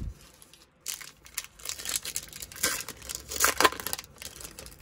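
A 2023 Bowman baseball card pack's wrapper crinkling and tearing as it is pulled open by hand. Irregular rustling starts about a second in and is loudest near the end.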